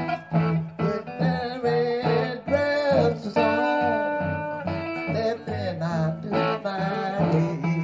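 Blues guitar picked over a repeating bass note, with a voice singing over it.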